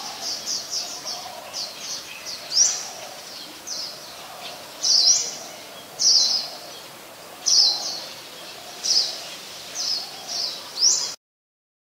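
White-eyes calling: a run of short, thin, high-pitched notes, each a quick slur, given every half second or so, some louder than others. The sound cuts off abruptly just before the end.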